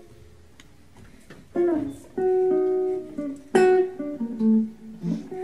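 Archtop guitar, freely improvised: after a pause of about a second and a half come a handful of sparse plucked notes and short chords, each left to ring. The loudest is about three and a half seconds in.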